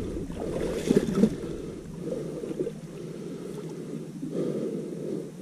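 Shallow marsh water sloshing and splashing irregularly as a person wades through it.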